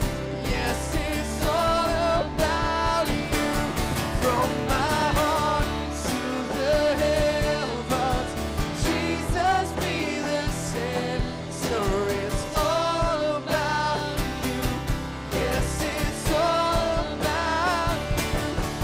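Live worship band playing a song: male and female voices singing over acoustic guitar and electric bass.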